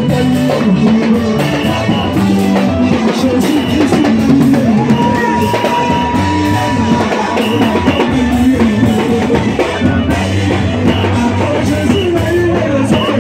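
Loud live worship music from a band with drum kit and guitar, with singing over it. A steady high tone is held for about two seconds midway, and short high glides come near the end.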